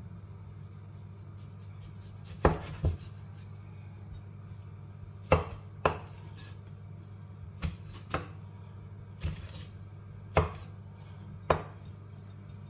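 Kitchen knife chopping a tomato on a wooden cutting board: about nine sharp knocks of the blade meeting the board, spaced unevenly, some in quick pairs. A steady low hum runs underneath.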